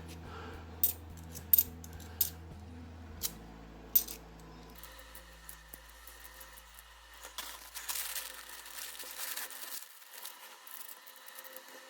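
50p coins clinking as they are handled and sorted: five sharp clinks in the first four seconds, then softer shuffling and light clinks of coins.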